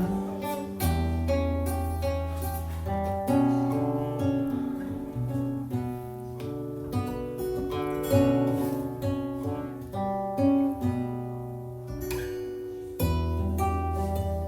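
Improvised music of plucked and strummed string notes over held low bass notes.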